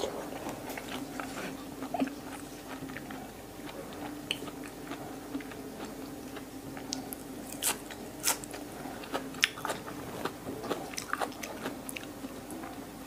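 Close-up chewing and biting of raw beef liver eaten with crunchy fresh herb sprigs, with many short wet mouth clicks and crunches. The sharpest crunches come about eight and nine seconds in.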